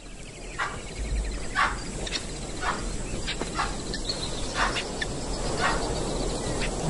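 Wild animal alarm calls from an impala and baboon group that has spotted a stalking lion: short, sharp calls repeated roughly once a second, over a faint steady insect drone.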